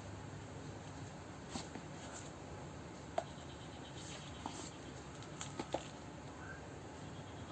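A few faint, scattered clicks and light taps over quiet room hiss.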